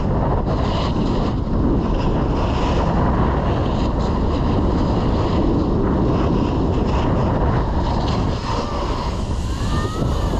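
A snowboard's edges scraping and chattering over hard, icy snow at speed, under steady wind rush on the microphone.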